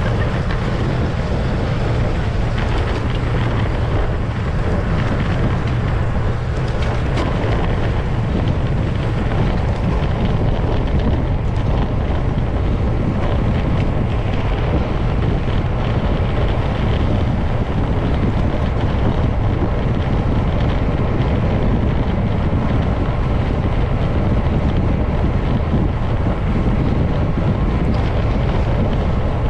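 Loud, steady wind noise rumbling on the microphone of a camera carried on a moving bicycle.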